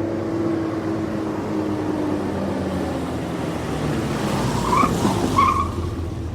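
Car engine running steadily, then two short tyre squeals close together about five seconds in.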